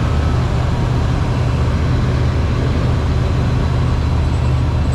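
A tractor engine running steadily at a constant speed, a loud, even, deep drone.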